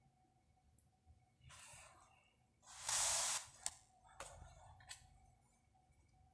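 Quiet room with soft handling noise: a few short hushing rustles, the loudest about three seconds in, and several light clicks.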